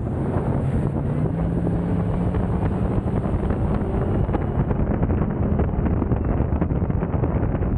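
Bösch 560 runabout's MerCruiser inboard engine running at speed, its note rising slightly about a second in, with the hull rushing through the water and wind buffeting the microphone.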